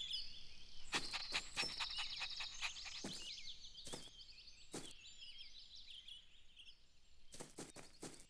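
Cartoon garden ambience: quiet, high-pitched chirps and trills, with short soft taps scattered through it, a quick run of them about a second in and a few more near the end.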